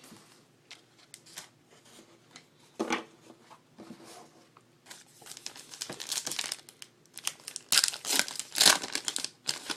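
Trading card pack wrapper being torn open and crinkled, in irregular crackling bursts that grow louder in the second half.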